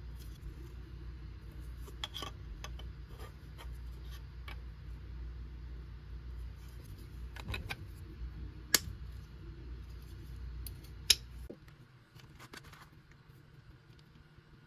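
Small airgun parts handled in the hands, with scattered clicks and two sharp snaps; one is the barrel band snapping onto the front of the grip. A steady low hum underneath stops near the end.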